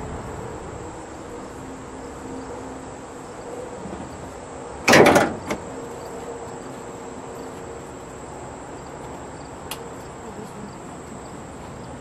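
Hood of a 1960 Ford Thunderbird released and popping up onto its safety catch: one short, loud metallic clunk about five seconds in, a smaller click just after, and a faint click near the end. A steady insect buzz runs underneath.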